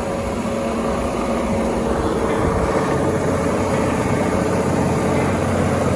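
Rice harvesting machine's engine running steadily, a continuous mechanical drone.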